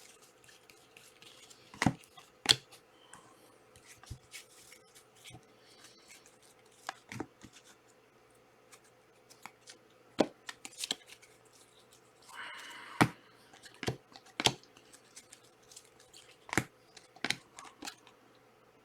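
Panini Prizm trading card packs and cards being handled: scattered light clicks and taps, with a short papery rustle about twelve seconds in.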